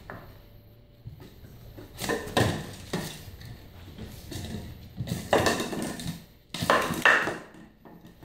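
Empty plastic water bottle being pawed, mouthed and shoved across a hardwood floor by a French bulldog puppy: irregular crackling, clattering bursts, the loudest a little before the end.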